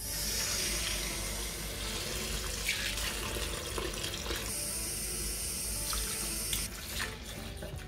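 Kitchen tap running into a stainless steel sink, the stream splashing onto a bowl of blackberries as they are rinsed and rubbed by hand. The water comes on suddenly and its rush thins near the end.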